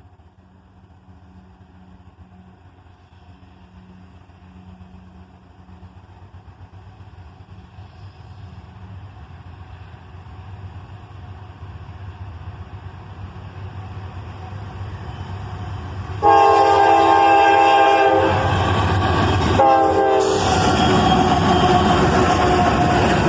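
CSX freight train led by GE Dash 8 and AC44CW diesel locomotives approaching: the engines' rumble grows steadily louder. About sixteen seconds in, the locomotive's air horn sounds a long chord blast and then a short one, a horn salute from the engineer. After that the train passes close with a loud rumble.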